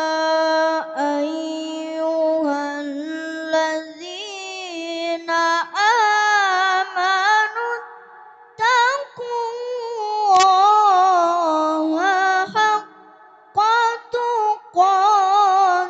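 A young boy reciting the Quran in Arabic in the melodic tilawah style, holding long notes with ornamented turns, with a few short breaks between phrases.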